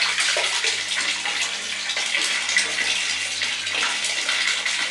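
A stream of water pours from the hose of an aquarium filter pump and splashes steadily into a bathtub, with a steady low electric hum from the pump underneath.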